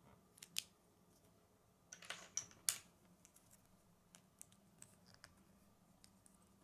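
Small plastic Lego pieces clicking as fingers press them together. There are a couple of sharp snaps about half a second in and a louder cluster around two to three seconds, then scattered light ticks.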